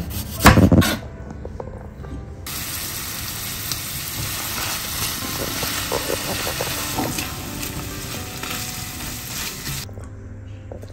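A chef's knife cuts through an onion on a plastic cutting board with a loud chop or two near the start. Then a stir-fry of chicken, onion, green pepper and carrot sizzles steadily in a frying pan for about seven seconds, cutting off shortly before the end.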